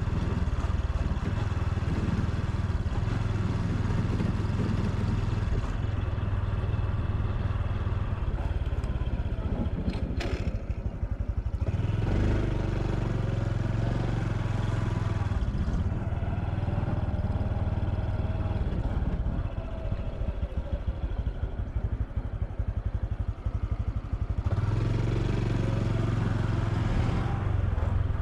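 Honda Super Cub C125's single-cylinder engine and exhaust running under way, the engine note rising and falling with the throttle. It drops off briefly with a click about ten seconds in, runs softer for a few seconds past the middle, then picks up again near the end.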